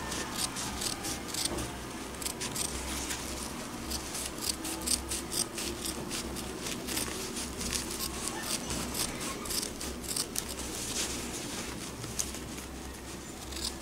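Scissors snipping through polyester batting and quilt fabric, trimming the excess along a sewn seam: a long run of short, crisp snips, several a second at an uneven pace.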